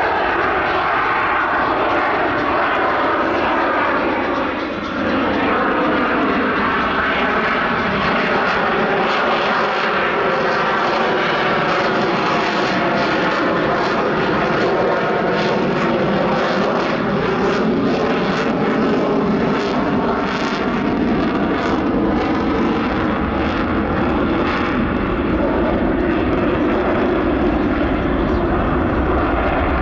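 Jet noise from an F-22 Raptor's twin F119 afterburning turbofans during a flying display: a loud, steady rush with whining tones that slowly bend in pitch as the jet moves past.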